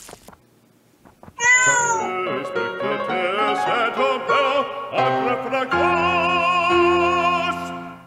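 A cat's meow, rising then falling, about a second and a half in, running straight into a short music jingle with a wavering melody that settles into a held chord and stops just before the end.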